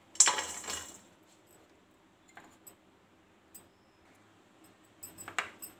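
Lumps of jaggery tipped from a bowl into an empty stainless-steel kadai, clattering onto the metal and dying away within a second. A few faint clicks follow, then a short run of lighter clicks near the end.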